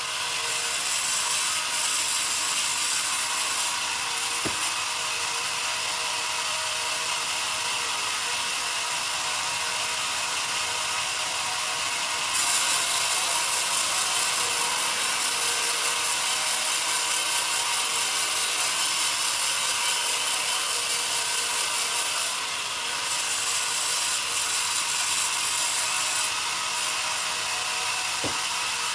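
Band sawmill running steadily as its blade saws through a young pine log. The sound gets louder and hissier for about ten seconds in the middle while the blade is in the cut.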